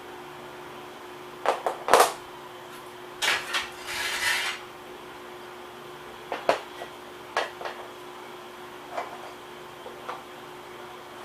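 Metal bicycle parts and hand tools clinking and clanking during disassembly, with a short scraping rattle about four seconds in. A faint steady hum runs underneath.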